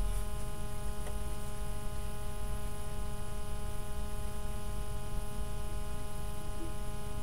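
Steady electrical mains hum with a buzzy edge, with no music or voice over it, and a faint click about a second in.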